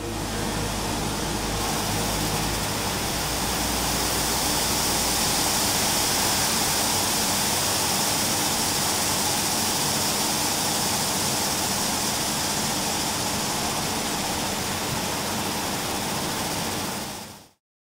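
Large flip-dot display, its thousands of small magnetic discs flipping continuously as it changes text and animations, making a dense, even rattling hiss. It cuts off quickly near the end.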